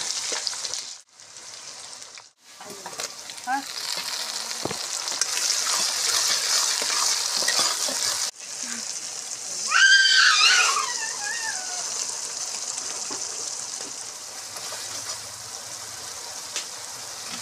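Onions, tomatoes and masala sizzling in hot oil in a pan while a metal spatula stirs and scrapes them. The sound breaks off in short gaps between clips. About ten seconds in, a brief high wavering sound is the loudest moment.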